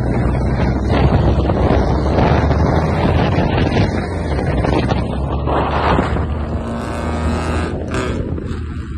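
Cars driving at highway speed: steady engine and road rumble with wind buffeting the microphone of a camera held out of a moving car.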